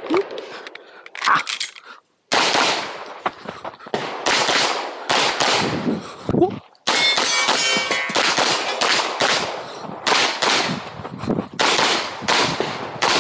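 Semi-automatic competition pistol fired in rapid strings and pairs of shots, starting about two seconds in after a brief silence. A short metallic ring comes a little before the middle.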